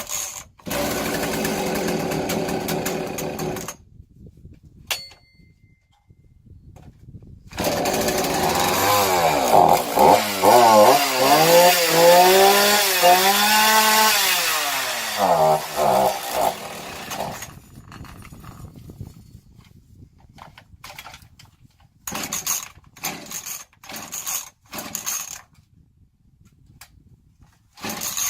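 Homelite two-stroke chainsaw engine running in fits: it runs for a few seconds, stops, then runs again and revs up and down repeatedly for about eight seconds before dying, followed by a few brief sputters. The saw is struggling to start and keep running, which the owner puts down to a bad carburetor.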